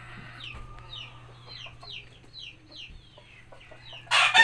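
Chickens: a run of short, falling peeps, about three a second, then a loud rooster crow starting near the end.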